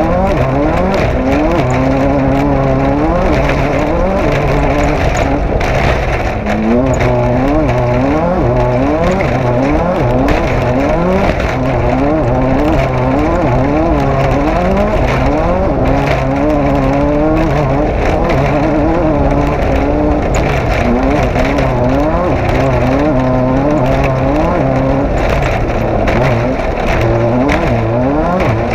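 Off-road race vehicle's engine running hard, its pitch climbing and dropping back again and again, about once a second, as the throttle goes on and off.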